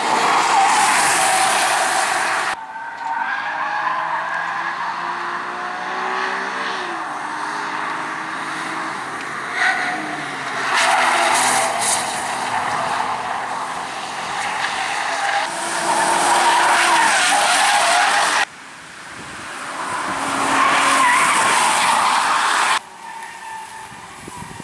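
Alfa Romeo cars driven hard around a race circuit: engines revving up and shifting through the gears, with tyres squealing through the corners. The sound changes abruptly several times as different cars pass.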